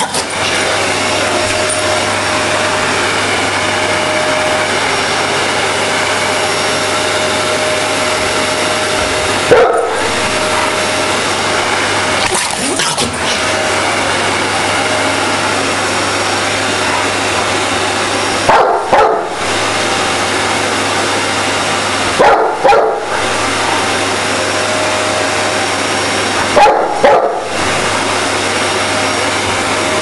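Vacuum cleaner running steadily with a constant hum, while a Dogue de Bordeaux barks at its hose in four short bouts, the first about a third of the way in and the rest in the second half, mostly two barks at a time.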